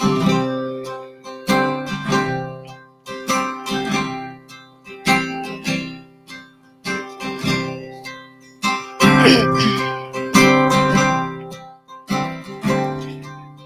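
Acoustic guitar strumming chords about once a second, each chord ringing out and fading, in an instrumental break without singing.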